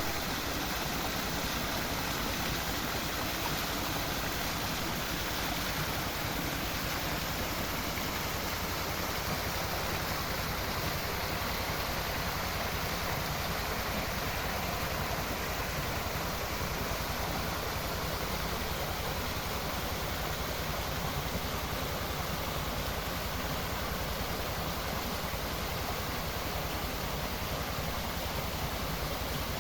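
A small seasonal hill stream running and splashing over rocks: a steady rush of water.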